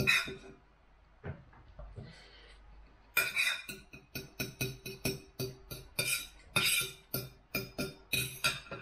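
Knife and fork clinking against a plate while cutting food. A few scattered clinks come first, then from about three seconds in a quick run of sharp clinks, two or three a second, each with a short ring.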